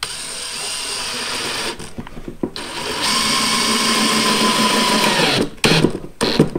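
Cordless drill-driver driving a wood screw into the end grain of a pine board without a countersink: the motor runs, breaks off briefly about two seconds in, then runs louder under load for a couple of seconds, its whine sagging as the screw seats before it stops. A few short trigger bursts follow near the end.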